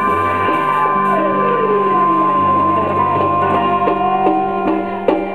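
Live blues band with organ, electric guitar and drum kit holding a long sustained chord, with one note sliding down in pitch about a second in. Near the end the level drops and a few sharp drum hits sound, as the song comes to a close.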